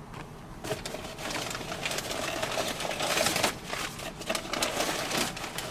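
A cardboard mailing box being opened by hand, with crumpled packing paper rustling and crackling as it is pulled out.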